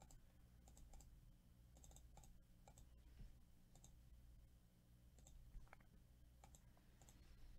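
Faint, scattered computer mouse clicks over a low steady hum; otherwise near silence.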